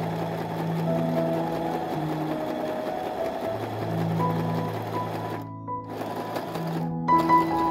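Domestic electric sewing machine running as fabric is fed through it, with two short breaks in the second half.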